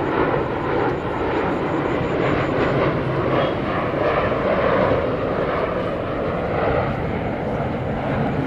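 Sukhoi Superjet 100 airliner's twin turbofan engines (PowerJet SaM146) running at approach power as the jet descends on final approach, heard as a steady jet noise.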